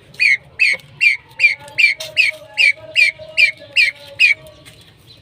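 Pheasant calling a rapid series of about a dozen high, wavering notes, roughly two and a half a second, then stopping, with a lower drawn-out note underneath in the middle.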